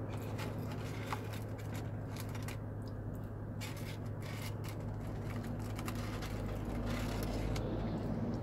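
Steady low hum of a parked car's idling engine and air conditioning, with irregular soft clicks and crackles of chewing and handling food.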